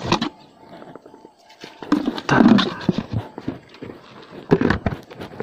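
Irregular knocks and clatters of a hard plastic bait bucket's compartment tray being handled, with a sharp knock at the start, a busier run of clattering about two seconds in and another short burst near the end.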